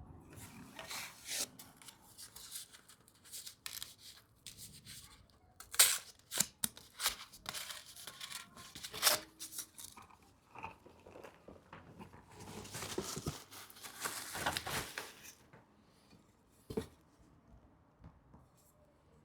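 Paper packaging crinkling and rustling as it is unfolded and handled, with scattered sharp crackles and a longer rustle about two-thirds of the way through.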